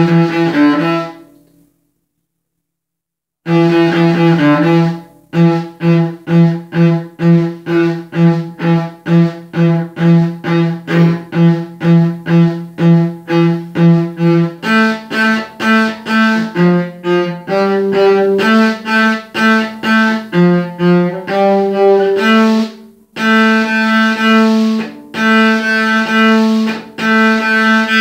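Solo cello bowed in short, detached repeated notes, about two a second. After an opening note and a gap of about two seconds, the notes repeat on one low pitch, then move up to a higher pitch about halfway through, with a few brief changes of note.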